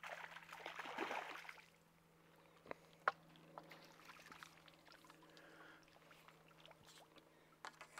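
Water splashing briefly as a small hooked bream is played at the surface, then quiet with a few sharp clicks and taps from the pole and landing net being handled, the loudest click about three seconds in.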